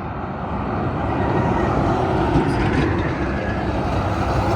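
Two Kenworth semi trucks driving past, their engine and tyre rumble growing louder over the first second or so and then holding steady; no horn is sounded.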